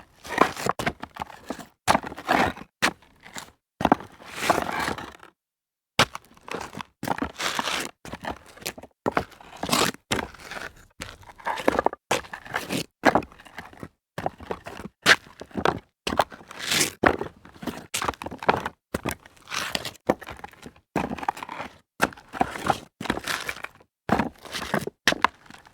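Sneaker steps on loose rock debris: a series of crunches and scrapes of grit and stones underfoot, irregularly spaced, with a brief silent gap about five seconds in between takes.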